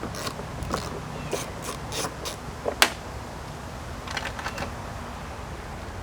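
Hand-tool work on a lawnmower: a string of irregular metal clicks, one sharp loud click just before the middle, and a quick run of clicks later on.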